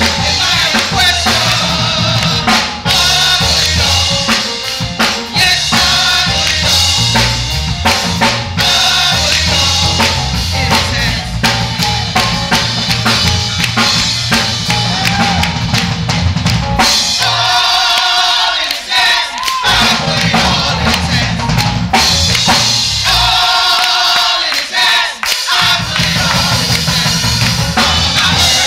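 Live gospel band playing, with a drum kit and bass driving a steady groove. The drums and bass drop out twice near the second half, leaving held chords for a couple of seconds each time before the beat comes back.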